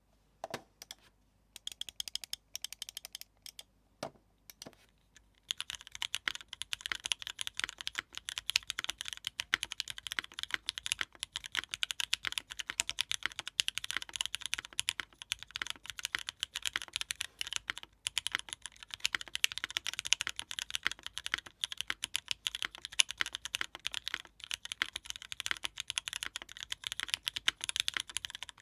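Mechanical keyboard with lubed, filmed, spring-swapped Cherry MX Black switches on a 60% board: a few scattered key presses, then steady, fast typing from about five seconds in.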